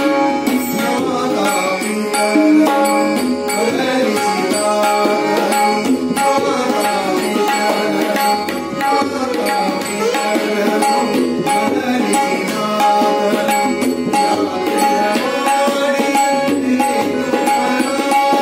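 Live Kannada devotional song: male voices singing over harmonium, sitar and tabla, with the tabla keeping a steady rhythm of strokes.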